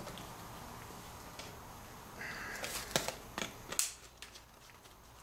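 A plastic bottle being handled: a short crinkle about two seconds in, then four light clicks and knocks within about a second.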